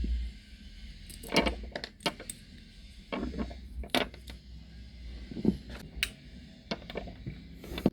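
Irregular sharp clicks and taps of small hard plastic and metal parts being handled, as in fitting the strap onto a T900 Ultra smartwatch, about a dozen in all with a few louder snaps.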